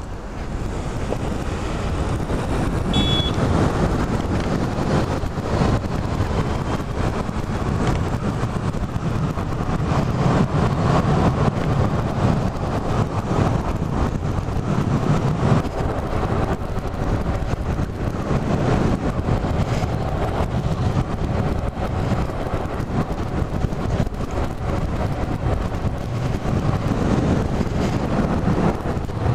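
Wind noise on the microphone and road traffic noise while riding an electric bike along a street, a steady low rushing that rises and falls. A brief high tone sounds about three seconds in.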